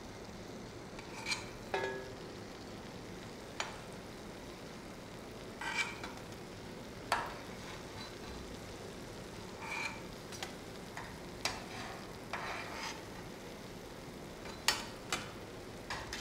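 Maida papdi deep-frying in hot oil with a steady low sizzle, browned on both sides and being scooped out. A steel slotted spoon clinks against the pan and a steel plate every second or two, some clinks ringing briefly.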